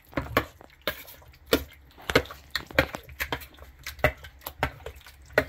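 A spoon stirring a thick, wet mix of pumpkin purée, chopped chicken and blueberries in a glass bowl, knocking and clinking against the glass in irregular taps, a couple of times a second.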